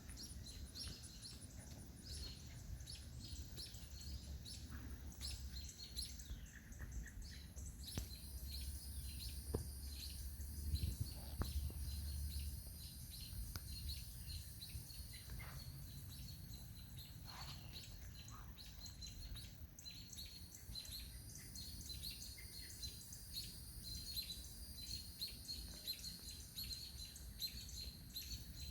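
Many birds chirping and calling in short, overlapping notes, over a steady high hiss, with a low rumble for a few seconds in the middle.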